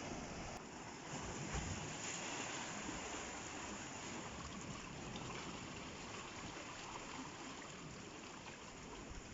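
Sea water washing and surging around coastal rock pools: a steady rushing hiss of surf and running water.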